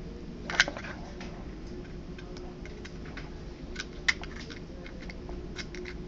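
Small plastic clicks and taps from handling a USB cable plug and a USB-to-SATA drive adapter as the plug is fitted into the adapter's port. The loudest click comes about half a second in, with another sharp one about four seconds in, over a faint steady hum.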